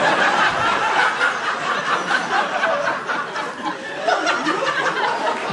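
Live audience laughing in a hall, a dense wash of many people's laughter that swells and eases a little without stopping.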